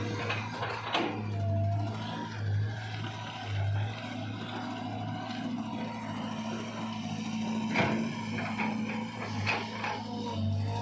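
Caterpillar 320 GC excavator's diesel engine running steadily and swelling under load as the hydraulics work, with a few sharp knocks, the loudest about eight seconds in.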